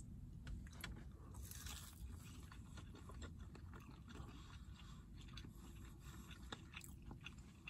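Faint chewing of crunchy McDonald's chicken nuggets, with scattered soft crunches over a low, steady hum.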